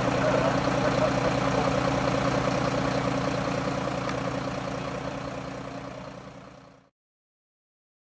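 Fire engine's diesel engine idling steadily, then fading out and cutting off about seven seconds in.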